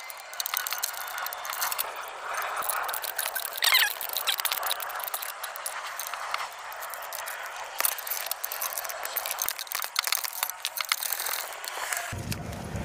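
Hand ratchet wrench clicking and clinking against metal while turning out a bolt on the engine, with a short squeak about four seconds in.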